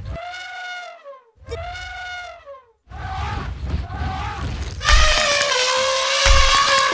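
Elephant trumpeting: two short calls that rise and fall in pitch, a couple of weaker ones, then a long, loud, harsh trumpet held for about two seconds near the end.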